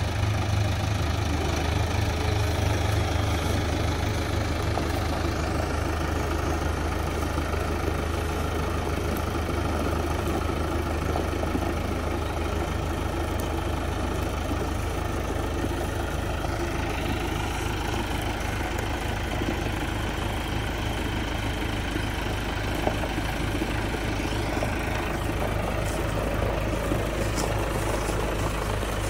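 John Deere 5525 orchard tractor's three-cylinder diesel engine running steadily near idle. About halfway through, a faint higher whine joins in.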